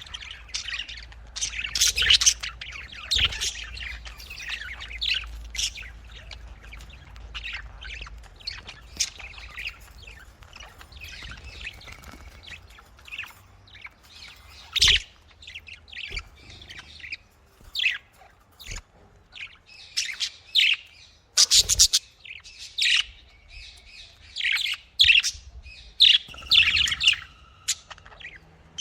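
Pet budgerigars chirping: a busy, irregular run of short high calls, with a few sharp clicks among them.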